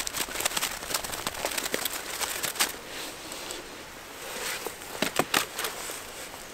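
Dry leaf litter and twigs crackling and rustling in irregular clicks, busiest in the first three seconds, with a few louder cracks about five seconds in.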